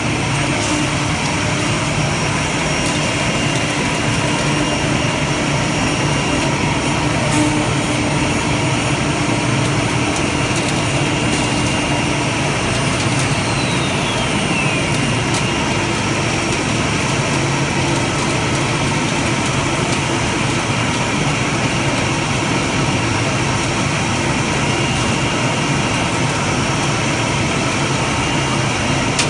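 ATC CNC wood router running, with a loud, steady machine drone. A steady hum stops about twelve seconds in, and a faint high tone falls in pitch shortly after.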